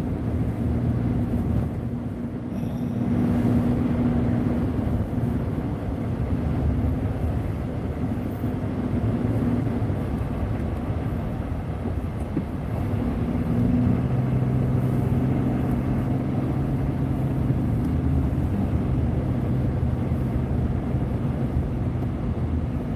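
Car driving on a snow-covered road, heard from inside the cabin: steady engine drone and road noise. A low engine hum becomes more distinct about 14 seconds in.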